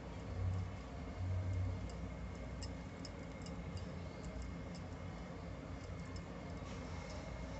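Light, irregular clicks and handling sounds of a 3 mm crochet hook working yarn, with a few dull low bumps in the first two seconds.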